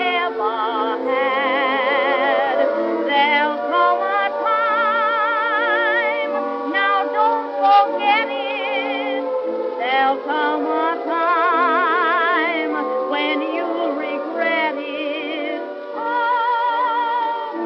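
Music: a voice-like melody with strong vibrato over held, sustained chords, with a slowly gliding lower line.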